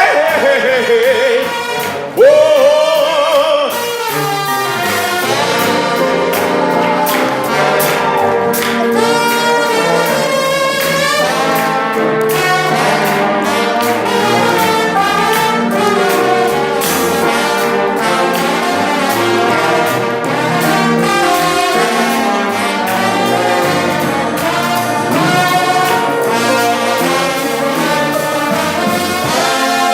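Brass ensemble led by trombones, with trumpets, playing a lively gospel tune over a steady beat; a sliding vocal-like line in the first few seconds gives way to the full horn section.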